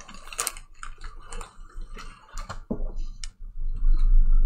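Plastic Ziploc bag crackling and its zip seal clicking as the bag is worked open. About three and a half seconds in, a louder low rumble of handling.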